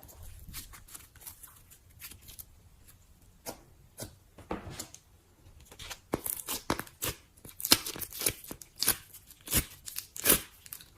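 Slime being poked and stretched by hand, giving irregular sticky crackles and pops that come thicker and louder in the second half.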